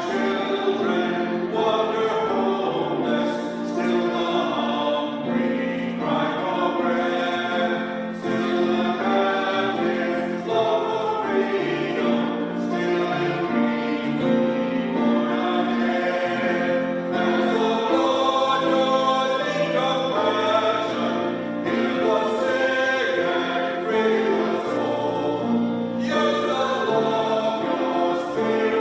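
Choir singing a sacred piece with instrumental accompaniment: sustained chords that change every second or two, with no breaks.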